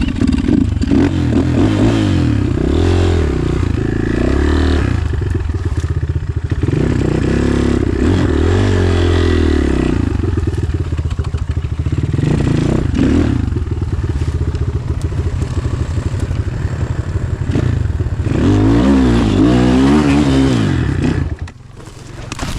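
Enduro motorcycle engine revved in repeated bursts, its pitch rising and falling, as the rider tries to ride the bike out of a stuck spot on a slope. The engine sound drops away abruptly near the end.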